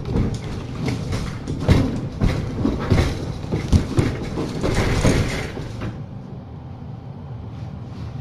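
A person handling things close by: a run of knocks, bumps and rustling for about six seconds, then it quietens to a low background.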